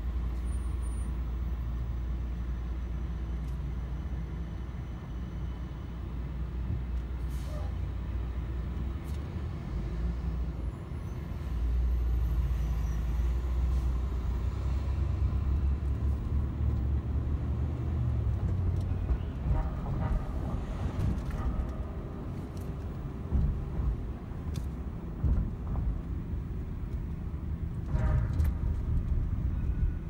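Low, steady rumble of engine and road noise heard from inside a car driving in city traffic, growing louder about a third of the way in. Two short, louder sounds cut through it in the second half.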